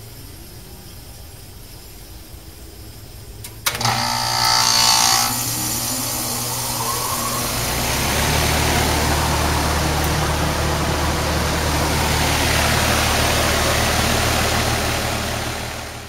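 2010 ICP Tempstar heat pump finishing its defrost cycle. A low hum, then about four seconds in a sharp click and a loud whoosh of refrigerant as the reversing valve shifts back to heating. The unit then settles into a louder, steady hum and rushing noise, which cuts off at the end.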